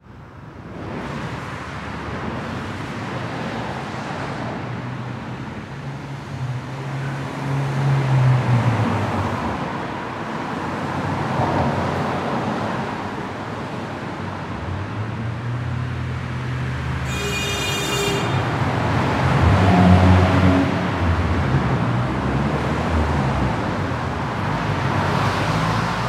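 Road traffic: a continuous wash of cars driving by, with engine noise swelling twice as vehicles pass close. A brief high-pitched tone sounds shortly after the middle.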